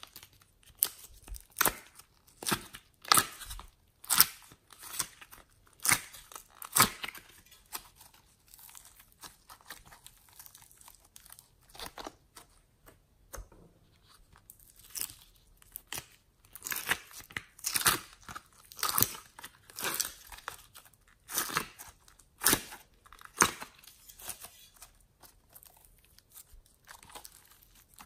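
Glossy slime and soft clay being pulled and peeled by hand out of a plastic palette tray, making irregular sticky crackles and snaps. The crackles come thickest in the first seven seconds and again from about seventeen seconds in.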